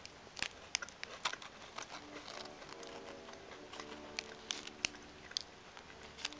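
Close-up crunching and chewing of a Bourbon Alfort chocolate-slab biscuit: irregular sharp crackles and clicks, some probably from the foil wrapper being handled. Faint background music comes in about two seconds in.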